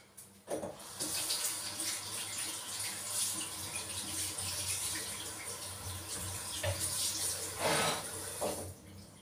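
Kitchen tap running into a sink, the water switched on about a second in and turned off shortly before the end, with a louder splash just before it stops.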